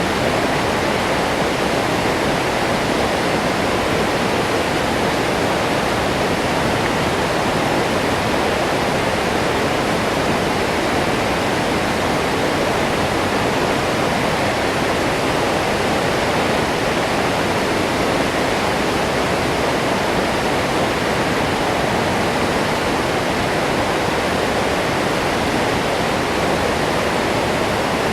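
Waterfall: water pouring steadily down and crashing into the pool below, an even, unbroken rushing roar.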